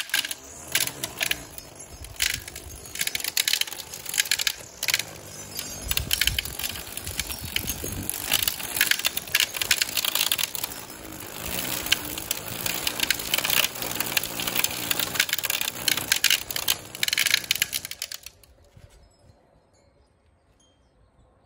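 Cordless electric string trimmer cutting grass, its spinning line clicking and rattling against the stalks; it stops abruptly about 18 seconds in.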